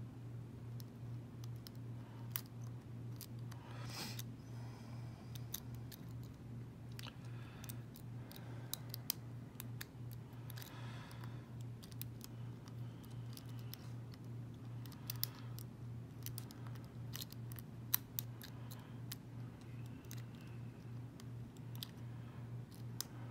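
A half-diamond lock pick working the pins inside a five-pin US Corbin padlock, giving faint, irregular metallic clicks and a few short scrapes. A steady low hum runs underneath.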